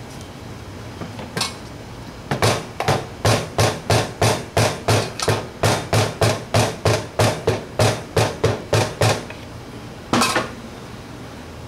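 Quick run of sharp hammer-like taps on engine parts, about three a second for some seven seconds, then one more blow a second later, as a VW 1600 cylinder is worked down over its piston and rings.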